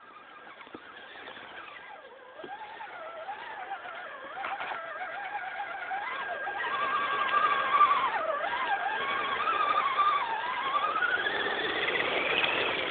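Axial RC rock crawler's electric motor whining as the truck drives through mud, its pitch wavering up and down with the throttle and climbing sharply near the end. It grows steadily louder as the truck comes close.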